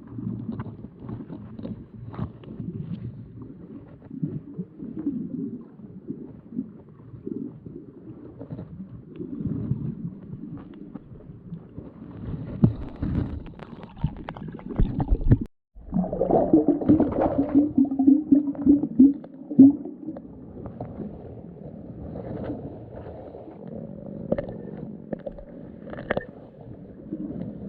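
Muffled, gurgling water sound as heard by a camera held underwater while snorkeling, with a steady low hum for a few seconds after a short dropout about halfway through.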